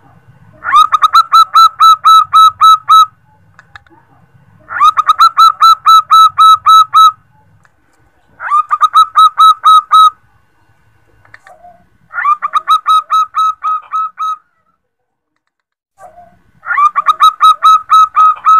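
Female zebra dove (perkutut) calling to a male. It gives five phrases, each about two seconds of fast staccato cooing notes at roughly five a second, with pauses of a second or two between them.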